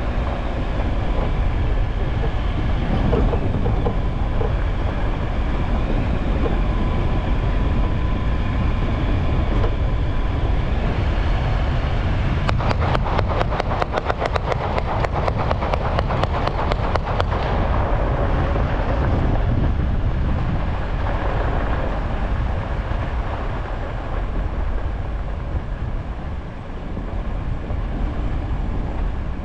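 Off-road vehicle driving on a gravel dirt road: steady noise of the engine and the tyres on gravel. Near the middle there is a fast clatter of about nine ticks a second that lasts several seconds.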